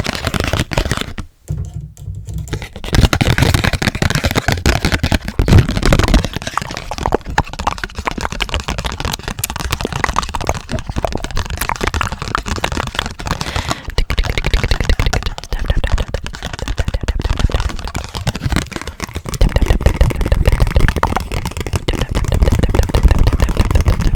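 Fast, dense tapping on a Hello Kitty Uno card set, close to the microphone: a steady stream of crisp clicks, with heavier, deeper taps a few seconds in and again near the end.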